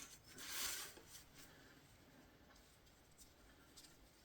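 A brief rubbing scrape about half a second in, then near silence.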